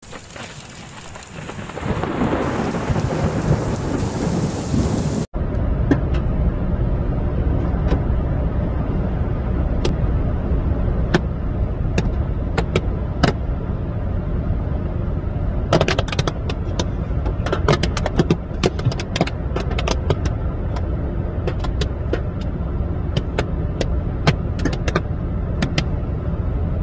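A thunder-and-rain sound effect swells for about five seconds, then cuts off. After that comes steady low road and wind rumble inside a moving car, broken by many sharp ticks of locusts striking the windscreen. The ticks come in dense clusters in the second half.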